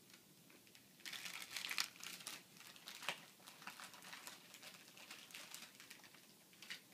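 Gift-wrapping paper crinkling and tearing as a small present is unwrapped by hand: a run of crackles that starts about a second in and is busiest for the next second.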